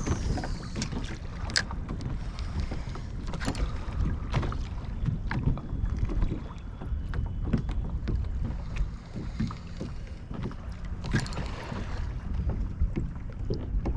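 Water sloshing and lapping against a kayak hull, with wind buffeting the microphone and scattered light knocks and splashes.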